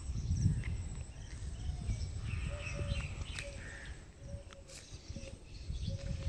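Low rumble of wind on the microphone while walking outdoors, with birds chirping in the background in short repeated notes through the second half.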